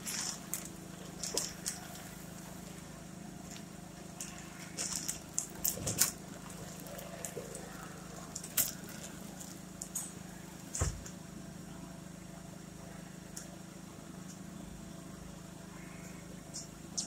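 Loose plastic sheeting crinkling and rustling in short bursts as it is pulled and handled, with a few knocks and one low thump about eleven seconds in, over a steady low hum.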